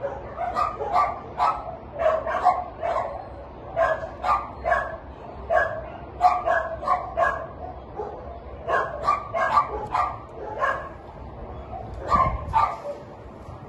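A dog barking repeatedly, in runs of quick short barks with brief pauses between them.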